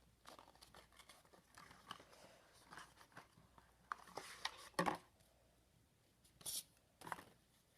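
Handling a Pokémon trading card deck and its packaging: scattered rustling, clicks and tearing, with a few louder crackles about five, six and a half and seven seconds in.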